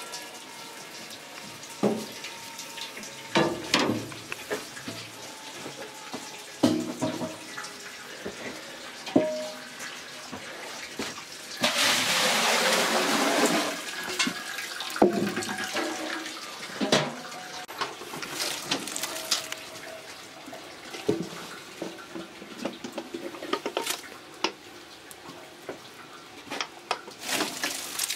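A gush of liquid poured for about two seconds near the middle, with shorter pours later, among knocks and clatters of wooden and metal brewing gear at a straw-lined lautering trough.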